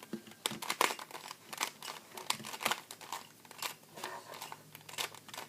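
Plastic Rubik's cube being turned in quick, irregular twists, its layers clicking and rattling.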